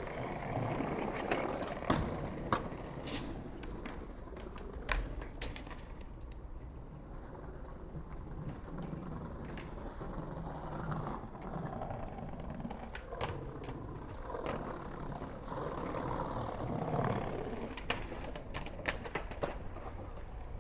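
Skateboard rolling over pavement with a steady wheel rumble, broken by scattered sharp clacks and knocks of the deck and trucks hitting the ground.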